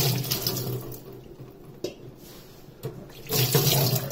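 Water running from a tap onto raw chicken pieces being washed in a pan, in two spells: one already running that fades out about a second in, another starting about three seconds in.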